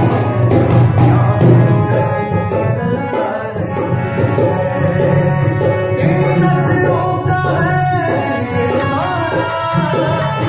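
Man singing a Hindi song in a full, strained voice to harmonium accompaniment, with drum strokes keeping time.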